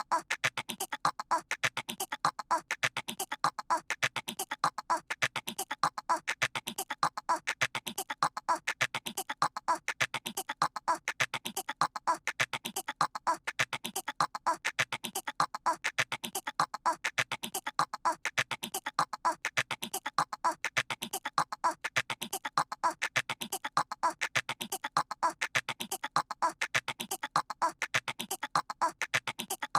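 A small child's voice imitating a squirrel: rapid chattering squeaks, the same short bit looped over and over, about once a second.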